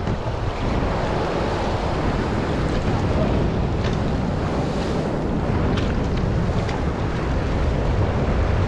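Wind buffeting the microphone over steady choppy sea-water noise, with a strong low rumble.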